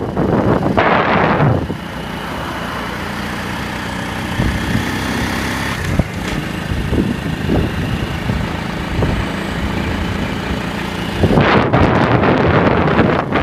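A motor vehicle running steadily on the move, with loud wind buffeting the microphone about a second in and again from near the end.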